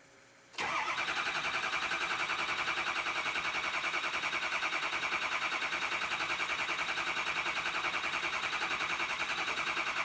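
Ford 6.0L Power Stroke diesel being cranked by its starter, starting about half a second in, with a steady, even pulsing. It is not firing: the batteries are getting weak.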